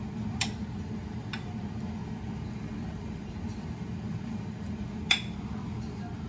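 A metal ladle clinking against a stainless-steel stockpot and a seasoning bowl: two light clicks in the first second or so, then one sharp, ringing clink about five seconds in, over a steady low hum.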